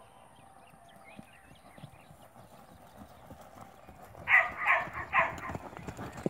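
Hoofbeats of a ridden colt moving on dirt, growing louder as it passes close by. Three short loud sounds come about a second past the middle, half a second apart.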